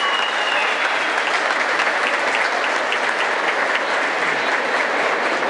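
Audience applauding steadily, many hands clapping at once with individual sharp claps standing out.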